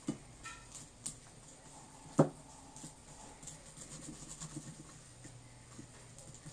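Hands scraping freshly activated slime out of a glass bowl: scattered soft clicks and taps, with one sharp knock about two seconds in.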